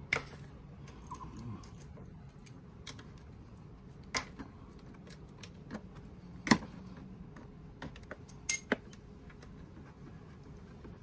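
Ratchet with an 8mm socket loosening the oil filter cover bolts on a Suzuki Burgman 400 engine: scattered sharp metal clicks among fainter ticks. The loudest click comes past the middle, and two come in quick succession near the end.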